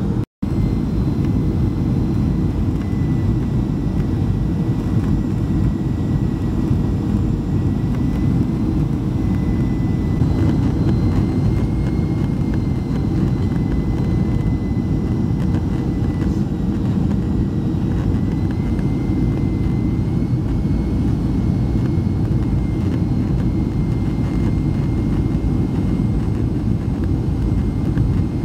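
Boeing 737-300's CFM56 turbofan engines heard from inside the cabin during the landing approach: a steady deep rumble of engine and airflow noise with a thin whine above it that drifts slightly in pitch.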